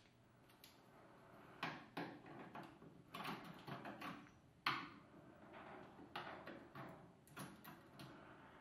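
Scattered light knocks and clunks of hand work on the accelerator pedal mounting in a car's footwell, with one sharper knock about halfway through.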